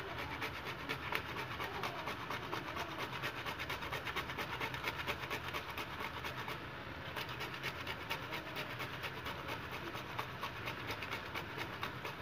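Whole nutmeg being grated on a stainless steel hand grater: a steady run of short rasping strokes, about four a second.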